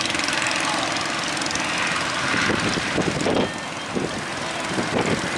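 Fishing-boat engines running steadily under a dense rush of wind and water noise, which turns gustier and rougher in the second half.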